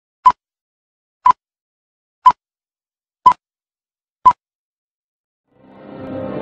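Film-leader countdown beeps: five short, identical high beeps, one each second. Near the end, music fades in.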